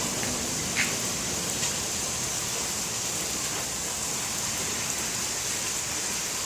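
Steady rain falling and pattering on surfaces, an even hiss. A single small tick about a second in.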